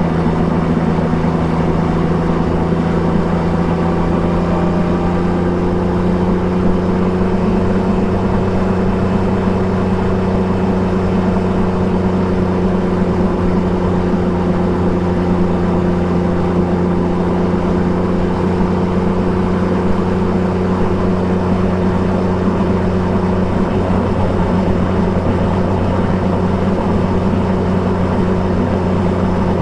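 Triumph Trident 660 motorcycle's inline three-cylinder engine with an Akrapovic exhaust, running steadily under way. Its pitch rises slightly over the first several seconds, then holds even.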